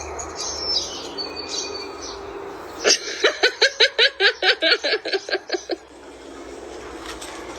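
A bird calling: a few high chirps, then a fast, even run of about fifteen sharp notes, roughly five a second, lasting about three seconds.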